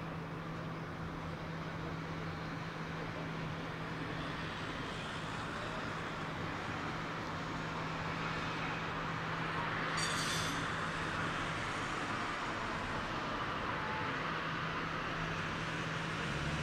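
Distant city ambience from high up: steady traffic noise with a tram pulling away from the stop. About ten seconds in comes a brief high-pitched ring or squeal.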